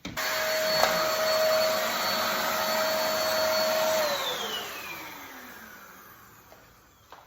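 Sowtech 500 W cyclone vacuum cleaner switched on and running steadily with a high motor whine, then switched off about four seconds in, its whine falling in pitch and fading as the motor spins down.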